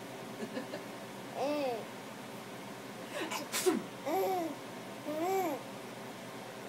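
A baby's short squealing vocalizations, babbling and laughing, three calls that each rise and fall in pitch. Between the first and second call comes a brief sharp, noisy burst, the loudest sound.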